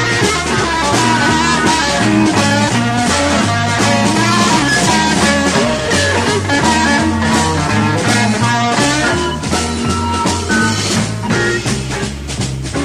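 Live psychedelic rock band playing an instrumental passage: a moving bass line under drums and electric guitar.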